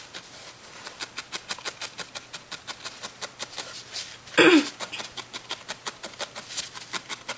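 A barbed felting needle stabbing again and again through orange wool into a foam block: a steady run of short pokes, about four or five a second. About halfway through comes one brief falling-pitched sound, the loudest thing here.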